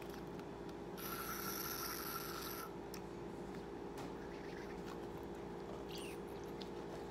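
Plastic squeeze bottle of slime activator being squeezed, air hissing and sputtering from its nozzle for about a second and a half, over a faint steady hum.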